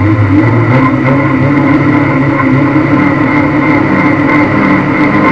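Lada demolition-derby car's engine running steadily with the car standing still, heard loud from inside the stripped cabin.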